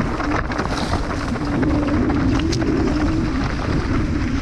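Mountain bike rolling downhill over grass and dirt: wind buffeting the camera microphone, with tyre rumble and a wavering low hum, broken by small knocks from bumps in the ground.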